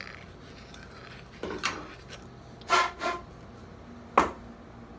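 Hand chamfer tool scraping around the inside edge of a freshly hacksawed steel shotgun barrel: a few short metallic scrapes, which deburr the cut muzzle. A sharp metal clank about four seconds in.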